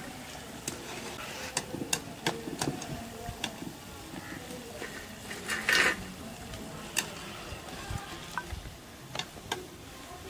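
A metal slotted skimmer clinking and scraping against a steel frying pan and plate as spinach pakoras are lifted out of hot oil, with the oil sizzling underneath. The clinks come scattered and sharp, with a longer clatter about six seconds in.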